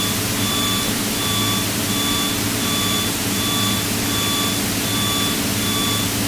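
Steady drone of the Piper PA-32's piston engine in the cabin during cruise. Over it, a short electronic beep repeats about twice a second.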